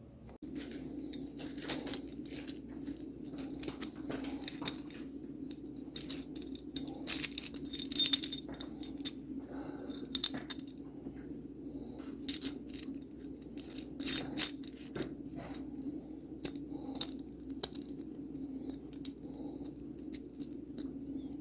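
Metal garbage-disposal mounting parts clinking and rattling as they are handled, in many short irregular clicks, with a steady low hum underneath.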